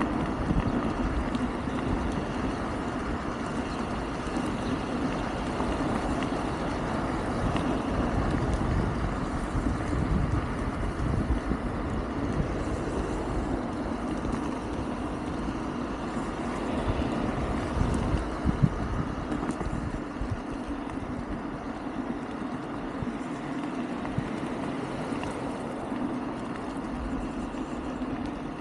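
Wind buffeting the microphone over a steady hum and road noise from a Wolf King GT Pro electric scooter cruising along.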